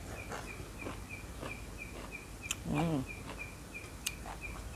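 Outdoor ambience with a high, evenly repeating chirp, about three to four a second, over a low background rumble. A short voiced hum comes in just before the 3-second mark, and a couple of sharp clicks are scattered through.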